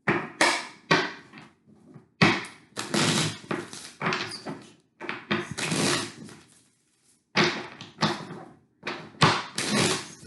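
Tarot cards being shuffled and handled, a quick run of about a dozen short rustling strokes and knocks of the deck, each dying away quickly, with a slight room echo.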